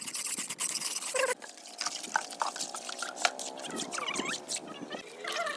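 Scrubbing with a brush for about a second and a half, then scattered drips and splashes of water as the hand pump and the ground around it are washed.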